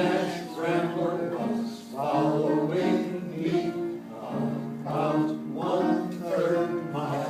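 Senior choir singing with accompaniment, the voices holding and changing notes about every half second.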